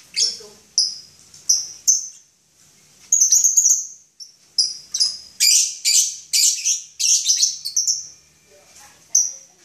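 Caged lovebirds calling: a run of short, shrill chirps repeating one after another, coming thickest from about five to eight seconds in.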